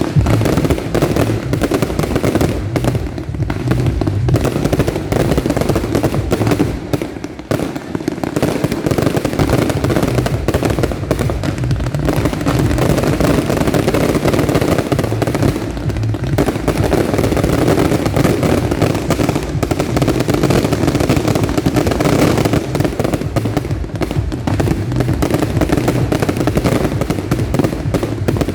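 Aerial fireworks display: a dense, continuous barrage of bangs and crackling, dipping briefly about seven seconds in.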